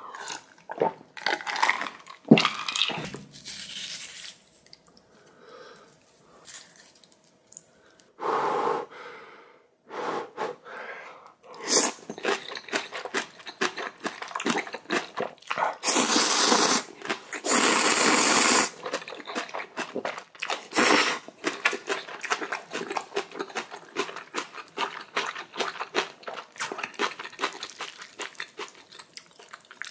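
Close-miked eating of ramen and kimchi: wet chewing and crunching with many small clicks, and two long, loud sucking sounds about sixteen and eighteen seconds in.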